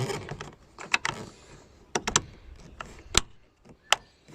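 Sharp plastic clicks, about five spread across a few seconds, with handling rustle at the start, as a door trim part is pressed into its clips and lock. The click is the sign that the part is secured.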